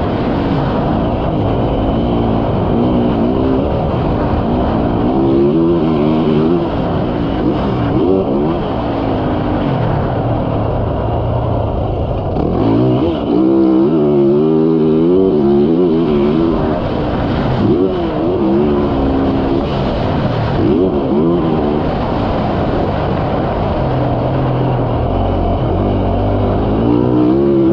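Yamaha YZ450F's four-stroke single-cylinder engine under way on a motocross track, revving up and backing off again and again as the rider works the throttle and gears.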